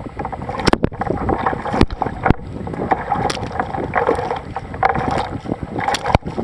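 Sea kayak being paddled: paddle blades splashing into the water stroke after stroke, with wind rumbling on the microphone and several sharp knocks. Near the end a splash of water washes over the deck-mounted microphone.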